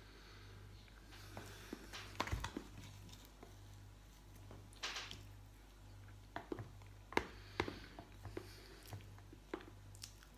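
Faint, scattered clicks and scrapes of a metal spoon in a plastic container of tiramisù, with soft mouth sounds of eating, over a low steady hum.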